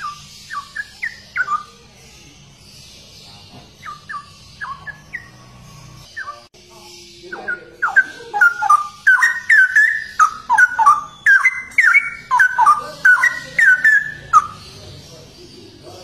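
Straw-headed bulbul singing its rich, liquid warbling song. A few short bursts of notes come in the first seconds, then a long, loud run of fast warbled phrases starts about halfway through and stops shortly before the end.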